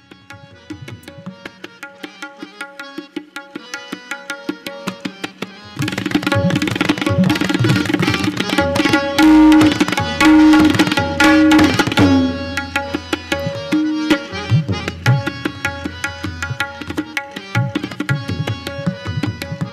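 Tabla played solo: the strokes start sparse and speed up, then break into a loud, dense passage with heavy bass strokes on the bayan from about six to twelve seconds in, before settling into a quick, even rhythm.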